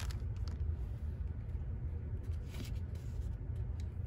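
Trading cards being handled: a card is laid down on bubble wrap and cards are slid through a stack, giving a few faint rustles and clicks. A steady low rumble runs underneath.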